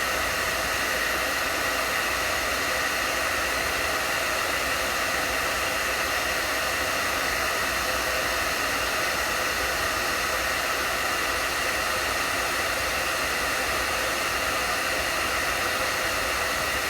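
Handheld hairdryer running steadily on its hottest, low-fan setting, a constant airy rush with a faint high whine in it. It is blowing hot air onto heat-shrink tubing to shrink it down over a phone charging cable's connector.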